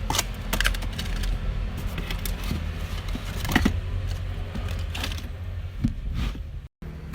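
Small objects being handled: scattered light clicks and short rustles over a steady low hum, with a brief break near the end.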